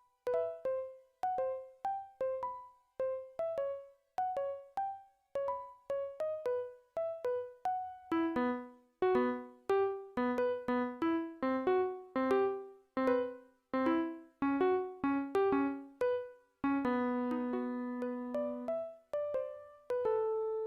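A piano-like keyboard playing a simple melody one note at a time in a steady rhythm; about eight seconds in, lower bass notes join the tune, and near the end a chord is held for about two seconds.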